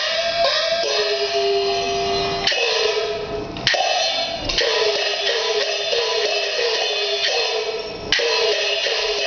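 Peking opera percussion accompaniment: gongs struck in a quick run, about three strokes a second, each with a bending ring, and sharp cymbal crashes twice, about four and eight seconds in.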